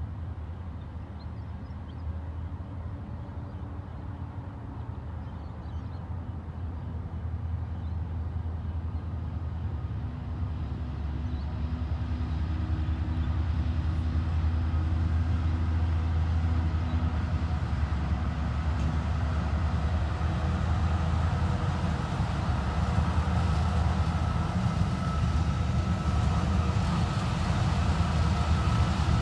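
A CBH grain train's diesel locomotive running through a rail yard. Its low, steady engine drone grows steadily louder from about a third of the way in as the train comes closer, with more rumble and rail noise building up.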